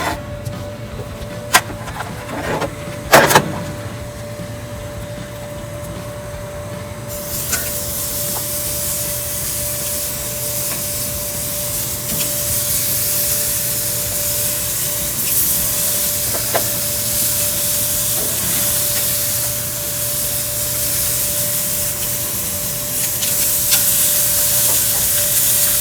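A few knocks and clicks as the chicken kebab skewers are set down on the grill grate. About seven seconds in, a steady sizzling hiss starts as the meat and vegetables hit the hot grill, and it grows a little louder near the end. A faint steady hum runs underneath.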